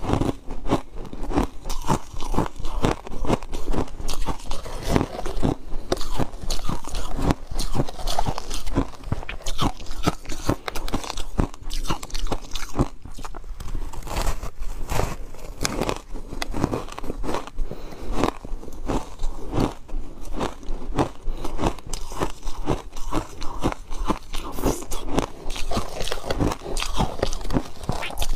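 Ice coated in matcha powder being bitten and crunched in the mouth, close to the microphone: a dense, irregular run of crisp cracks and crunches as the ice is chewed.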